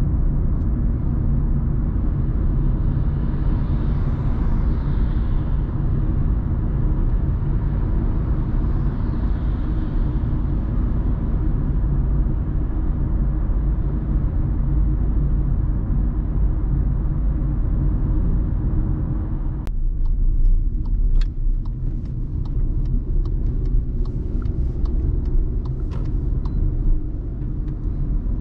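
Cabin sound of a 2019 Volkswagen Polo with a 1.0-litre three-cylinder petrol engine, driving: a steady engine and tyre rumble. About two-thirds of the way through, the road hiss drops suddenly and a run of irregular sharp clicks and knocks follows over the rumble.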